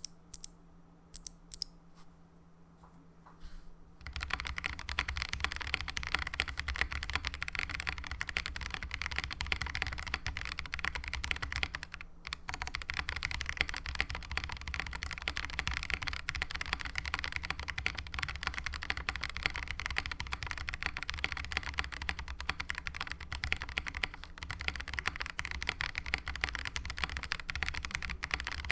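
Mechanical keyboard with an aluminium plate, lubed Gazzew Boba U4T tactile switches and GMK keycaps, being typed on: a few separate keystrokes at first, then fast continuous typing from about four seconds in, with one brief pause about twelve seconds in.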